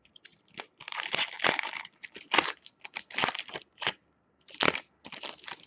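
Irregular crinkling and crackling of packaging as a hockey card pack wrapper is torn and handled, in several short bursts with the longest about a second in.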